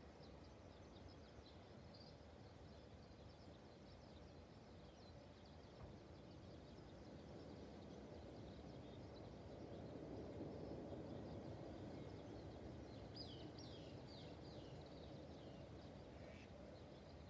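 Faint open-air ambience over flooded rice paddies, with distant birds calling: scattered short chirps throughout and a quick run of descending calls about three-quarters of the way in.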